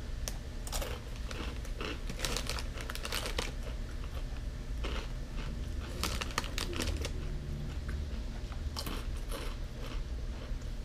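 Takis rolled tortilla chips being crunched and chewed, in irregular crisp crunches, with the foil snack bag crinkling as it is handled.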